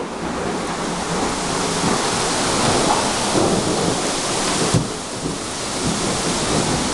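Torrential rain driven by strong storm wind, a dense and steady downpour. A little before five seconds in, the hiss abruptly turns duller while the downpour goes on.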